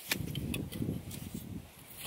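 Dry driftwood sticks being laid side by side on sand, giving a few sharp wooden clicks as they knock together, over a low scuffing in the sand.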